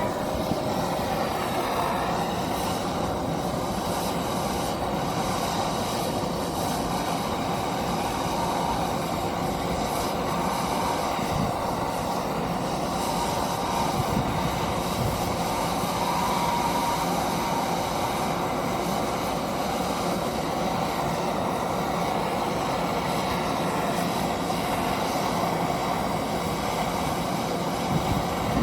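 Steady machinery noise running evenly throughout, with a faint thin high whine above it.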